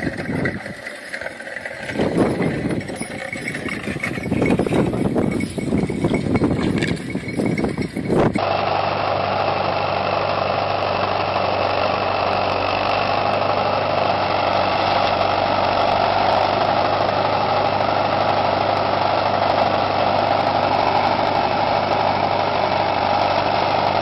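Uneven clatter and rustling for about the first eight seconds, then a sudden change to an old red farm tractor's engine running steadily at constant speed while it pulls a disc plow through the soil.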